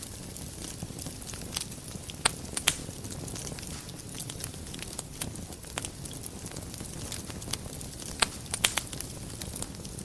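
Wood fire burning in a fireplace, a steady low rush of flame with irregular crackles and sharp pops, the loudest pops about two seconds in and again about eight seconds in.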